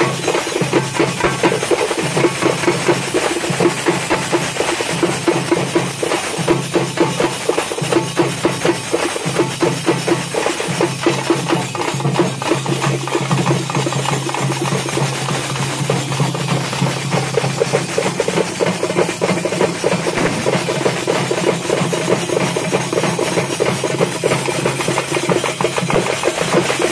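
Fast, continuous festival drumming with percussion, over a low steady tone that drops out about two-thirds of the way through.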